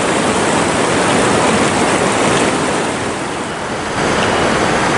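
Fast-flowing river water rushing over rocks: a steady water noise that gets a little louder about four seconds in.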